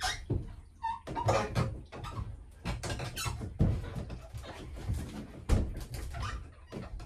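Squeaks and irregular knocks and clatters from the lifting gear and the old Volvo Penta diesel engine as it is hoisted up out of its engine bay, with a few short rising squeals.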